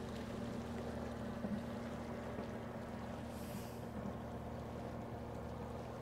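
Lake water lapping gently, under a steady low hum.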